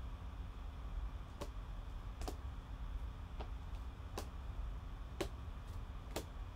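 Rigid plastic top-loader card holders clicking as they are picked up and laid down on a table and against one another: about six sharp clicks, roughly a second apart, over a low steady hum.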